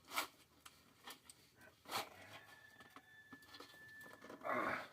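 Gloved hands scraping and rubbing on a 14-inch duct elbow while trying to twist it into place. There are a couple of short scrapes, a faint steady whine in the middle, and a louder brief rush of noise near the end.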